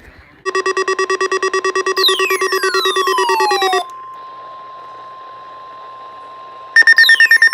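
Electronic weather-radio alert: rapid pulsing beeps with falling sweeps over them. About four seconds in, a quieter steady warning-alarm tone over radio hiss takes over, and near the end the pulsing beeps return louder.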